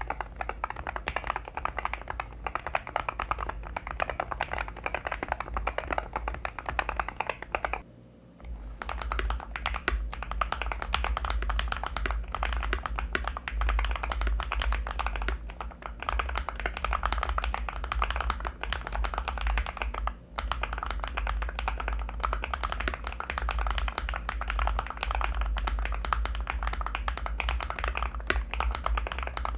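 Fast continuous typing on an Irok NA87 Pro magnetic-switch keyboard, dense overlapping key clacks. For the first eight seconds the keyboard has its stock 35 g magnetic switches, lubed and foam-dampened. After a brief pause it switches to RAW HE magnetic switches.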